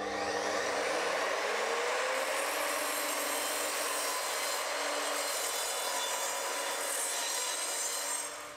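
Evolution sliding mitre saw cutting through a glued-laminated pine board: the blade's steady cutting noise, with a whine that rises in pitch over the first couple of seconds. The sound cuts off suddenly near the end.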